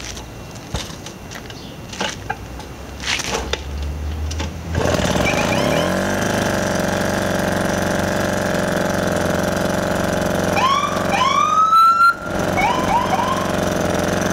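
Morini M02 two-stroke moped engine being started: a few clicks and knocks, then it catches about five seconds in and runs steadily. Several quick throttle blips follow, each a rising note, around ten to thirteen seconds in. The engine is running with a vacuum leak.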